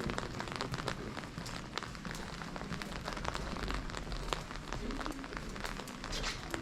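Steady rain falling, with many close drops pattering in quick sharp ticks over the hiss of the rain.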